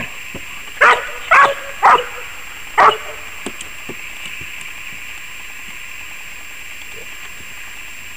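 An Australian shepherd gives four short barks, starting about a second in, the first three about half a second apart and the last a second later.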